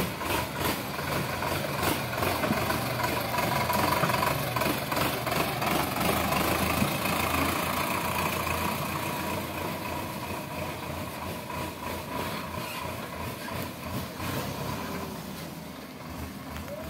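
Sonalika DI 750 tractor's diesel engine running as it pulls a loaded trailer out of a lane and onto the road, loudest a few seconds in and fading as the tractor drives away.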